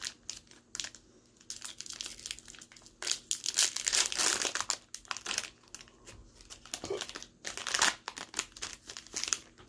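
Foil wrapper of a Pokémon trading card booster pack crinkling and tearing as it is opened, in irregular crackly bursts, loudest a few seconds in and again near the end.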